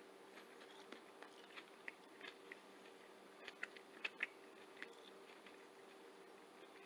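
Faint chewing of tough boiled chicken feet: a string of small mouth clicks, strongest a little past the middle, over a faint steady hum.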